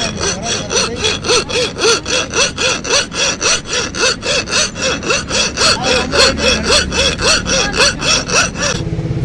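Rapid back-and-forth strokes of a hand tool rasping or sawing, about three a second and evenly paced, each stroke with a short rising-and-falling squeal. The strokes stop near the end.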